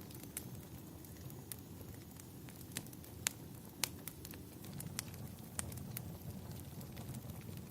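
Wood fire crackling: irregular sharp pops and snaps over a steady low rumble, with two louder pops a little past the middle.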